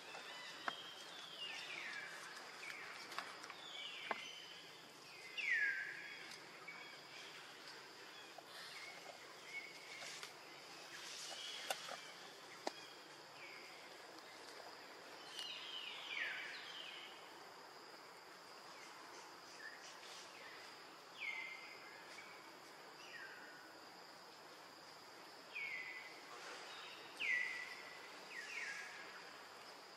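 Forest ambience: a bird giving short calls that fall in pitch, repeated irregularly every few seconds, over a steady high insect drone, with a few faint clicks.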